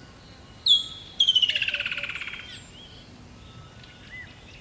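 Songbird singing: one sharp call, then a fast trill of rapidly repeated notes that falls in pitch and fades over about a second, with faint chirps of other birds behind.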